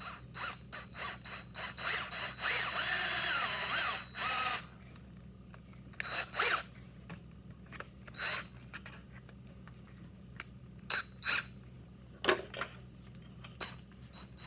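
A power drill runs for about two seconds, its pitch wavering, then runs again briefly. Scattered knocks and clicks follow as tools and parts are handled.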